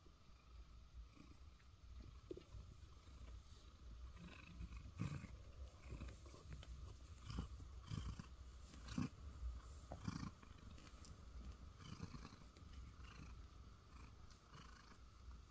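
Ragdoll cat purring softly and steadily, a contented purr. A few soft rustles and bumps come through in the middle as its face presses against a hand.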